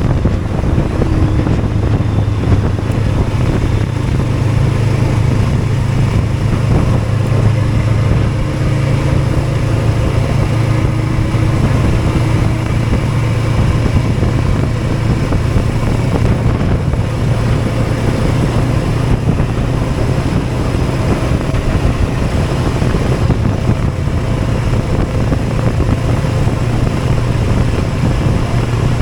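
Motorcycle engine running steadily, with wind rushing over the microphone.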